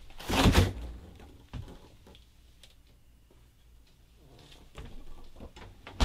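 Refrigerator door pulled open, a loud rush as the seal lets go about half a second in, then some small knocks and rattles as the door swings back, ending in a sharp thump as it shuts near the end.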